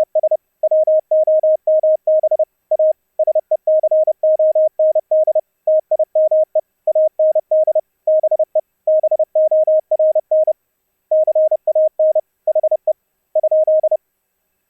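Morse code (CW) sent fast as one steady beep tone keyed on and off in short and long elements and grouped into characters and words: a VLF CW signal demodulated down to audio by the LYSDR sound-card SDR. The keying stops about a second before the end.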